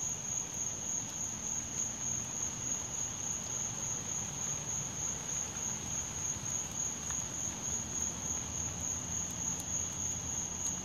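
A steady, high-pitched chorus of night insects, a continuous trill that does not let up.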